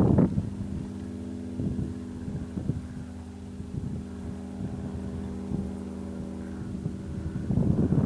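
Engine running at a steady drone, with wind buffeting the microphone at the start and again near the end.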